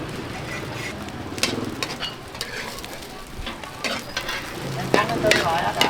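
Food sizzling as it fries in a pan, with a metal utensil clicking and scraping as it is stirred. A voice is heard briefly near the end.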